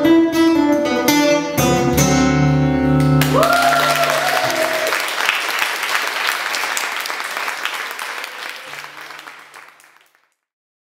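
Acoustic guitar and electric bass playing the last chords of a country blues song, the final chord ringing out. Applause comes in about three seconds in, outlasts the chord, dies away and stops shortly before the end.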